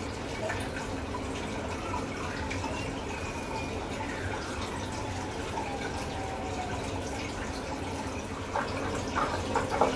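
Steady trickling and dripping of aquarium water, with a few sharp splashes in the last second and a half as a hand moves through the tank water to catch a fish.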